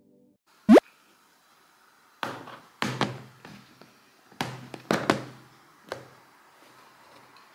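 A short, sharp squeak rising in pitch, then a run of sharp knocks and thuds in small clusters over the next few seconds, like objects being knocked and set down.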